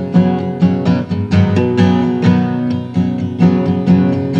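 Acoustic guitar strummed in a steady rhythm of chords, about three strokes a second.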